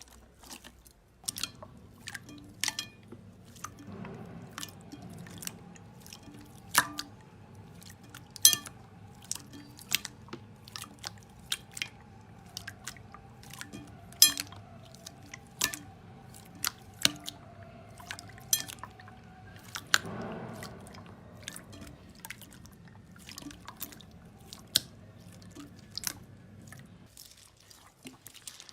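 Slime being squeezed and pressed by hand, giving sharp wet pops and clicks every second or two over a soft squishing sound.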